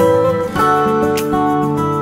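Background music led by strummed acoustic guitar, changing chord about half a second in.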